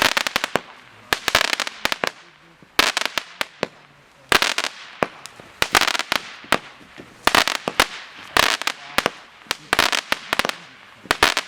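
A 50-shot firework cake firing shot after shot, about one every second and a half. Each shot bursts into a dense cluster of crackling pops.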